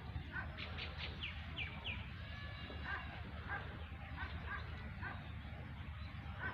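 Birds chirping faintly: short high calls repeating about twice a second, with a few quick falling chirps higher up in the first two seconds, over a low steady rumble.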